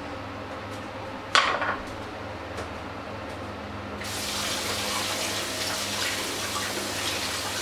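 Kitchen tap turned on about four seconds in, water running steadily into the sink. A short, sharp clatter comes about a second and a half in, over a steady low background hum.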